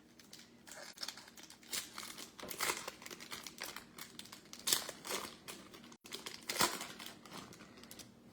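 Trading-card pack wrapper being crinkled and torn open by hand, a run of irregular crinkling rustles.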